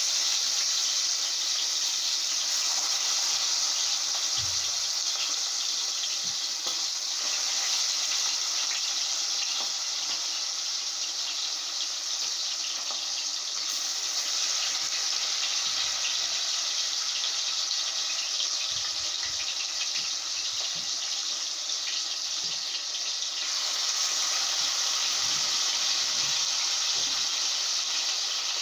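Chicken pieces frying in hot oil in a pot, a steady sizzle with fine crackling as the chicken browns.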